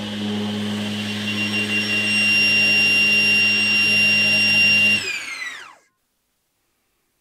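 Laguna Fusion 3 cabinet saw running with its blade spinning: a steady motor hum under a high, even whine, growing louder about two seconds in. About five seconds in the saw is switched off, and the whine falls in pitch and fades as the blade spins down.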